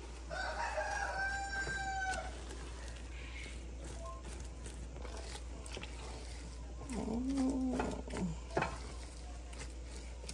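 A rooster crows once near the start, a call of about two seconds that holds a steady pitch and then stops. Later come a short low vocal sound and a few sharp knocks.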